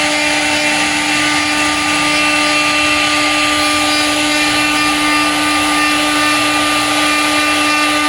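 CNC wood-turning lathe running, a steady machine whine over a continuous hiss.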